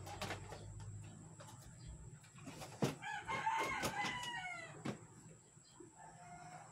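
A rooster crowing once, about a second and a half long, its pitch falling at the end. A sharp knock comes just before the crow and another just after it.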